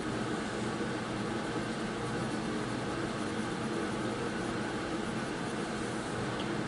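Steady background hum and hiss, unchanging throughout.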